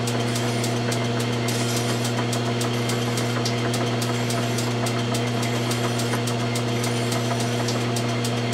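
Logan metal lathe running steadily with a low hum as a rifle barrel turns in its chuck, while a fine hand file rasps lightly on the muzzle, rounding off its outer edge after crowning.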